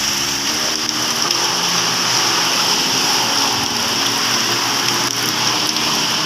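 A steady hiss, even and unbroken, with a melody of background music playing over it.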